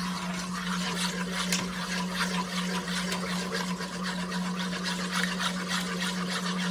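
Wire whisk stirring a thin yogurt and cornstarch mixture in a nonstick pot: quick, uneven scraping and swishing strokes against the pot, over a steady low hum.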